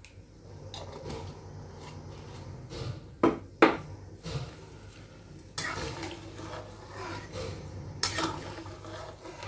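A steel ladle and spatula stirring rice and water in a metal kadai, the liquid sloshing and the utensil scraping the pan, with two sharp knocks of metal on metal a little over three seconds in. A steady low hum runs underneath.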